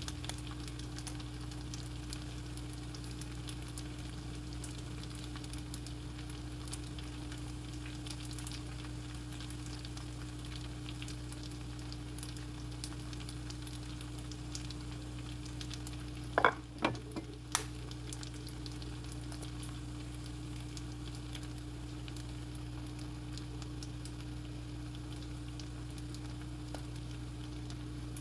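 Steady sizzling of vegetables frying in a pan, over a steady low hum. A few sharp clicks about two-thirds of the way through, from eggs being cracked.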